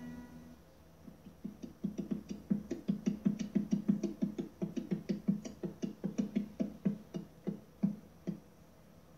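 Horse hooves clip-clopping at a walk, a steady run of three to four knocks a second that starts about a second and a half in and dies away near the end.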